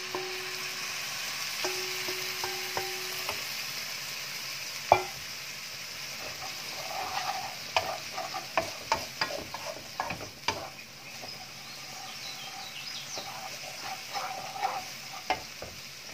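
Chopped aromatics and chillies sizzling in oil in a wok after a splash of water. From about five seconds in, a wooden spatula stirs and scrapes the pan, with quick sharp taps against the wok.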